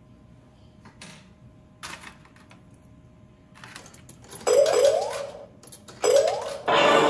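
A 2000 Mizuho "Marine Battle" pachislot machine being played: a few short clicks from its controls, then from about halfway, loud electronic sound effects with quick rising chirps, twice. Near the end a dense electronic tune starts.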